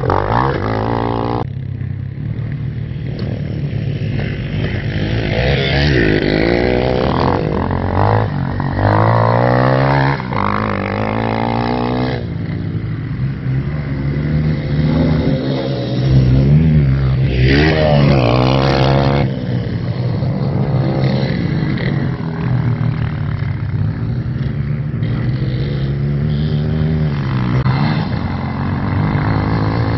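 RPS Hawk DLX 250's air-cooled 230cc four-stroke engine revving hard and dropping back again and again as the dirt bike is ridden fast and jumped on a dirt track. The engine pitch rises and falls repeatedly, and the sound changes abruptly a couple of times where shots are cut together.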